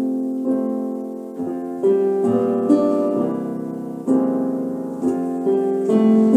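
Keyboard playing piano chords in an unaccompanied instrumental passage, each chord struck and left to ring and fade before the next, about one a second.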